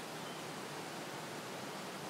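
Steady, even rushing noise of a nature soundscape, with no distinct events.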